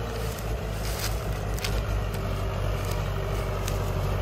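Mahindra 575 tractor's diesel engine running steadily under load as it pulls a loaded sugarcane trolley up an incline, climbing without strain. A few faint clicks are heard over the drone.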